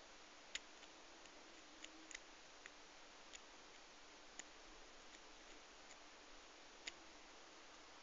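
Faint, irregular clicks and ticks of a diamond lock pick working the pin stack inside a five-pin brass barrel padlock, over steady hiss. The sharpest clicks come about half a second in and again about seven seconds in.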